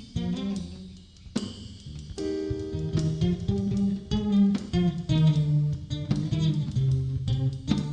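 Instrumental background music: a plucked guitar playing a run of notes over a lower line.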